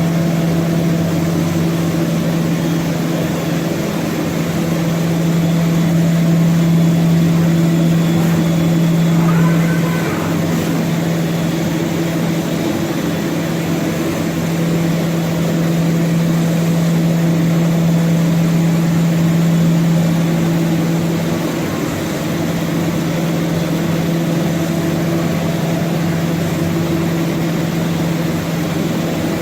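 HOMAG BOF 41/K woodworking CNC machining center running with a steady, loud mechanical hum.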